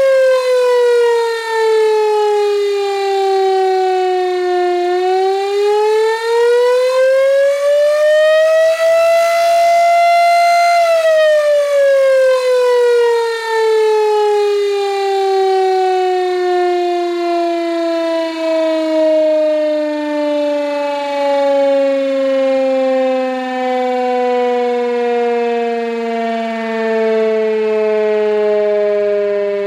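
Gryphon BS 2048 electric motor siren wailing as it sounds an attack warning: the pitch falls, climbs back over about six seconds, then sinks slowly and steadily for nearly twenty seconds to a much lower pitch.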